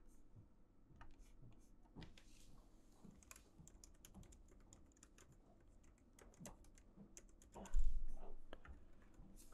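Typing on a computer keyboard: scattered key clicks, with one louder thump a little under eight seconds in.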